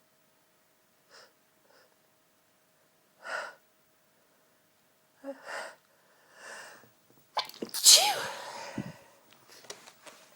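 A person's short, catching inhales building up over several seconds, then one loud sneeze nearly eight seconds in, trailing off in breath.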